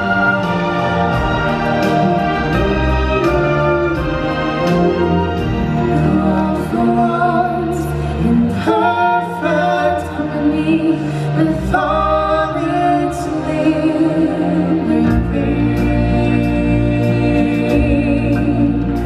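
Live stage-show singing: several voices together, choir-like, over loud backing music.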